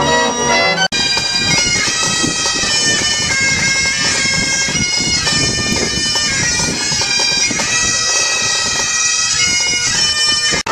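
A short snatch of organ music cuts off about a second in, and bagpipes then play a tune.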